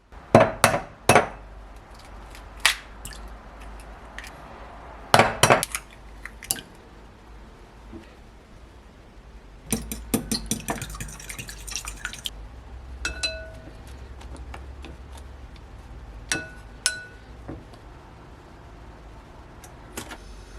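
Kitchen utensils and dishes clinking and knocking: scattered sharp knocks, a quick run of rapid taps about halfway through, and a few clinks that ring on briefly.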